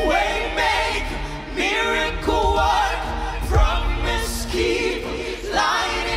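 Church worship team and choir singing a gospel worship song over the band, in sustained notes with vibrato above a steady bass.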